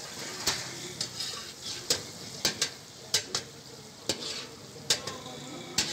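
Sliced onions and chicken sizzling in hot oil in a large wok, being fried until the onions turn brown. A metal ladle stirs them, clicking and scraping against the pan about ten times, every half second to a second.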